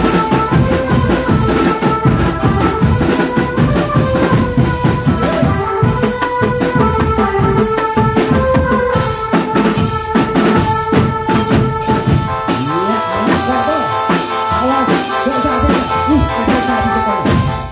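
Youth marching drum band playing: fast, dense drumming on marching tenor and snare drums with bass drum, with a melody held over the beat.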